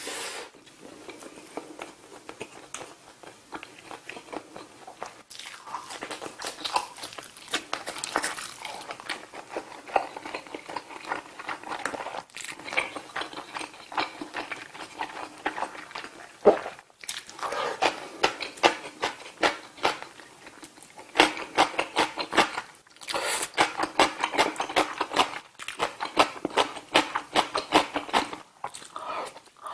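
Close-miked chewing of mouthfuls of spicy soft-tofu stew (sundubu-jjigae), rice and grilled saury, with quick wet clicking mouth sounds coming in bursts and short lulls between them.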